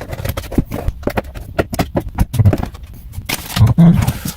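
Screwdriver prying and scraping at the plastic clips and housing of a Dodge Challenger instrument cluster: a rapid run of sharp plastic clicks, knocks and scrapes, loudest about three and a half seconds in.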